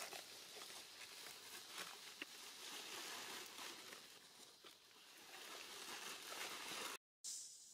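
Faint rustling and crackling, with a few short faint ticks; the sound drops out completely for a moment near the end.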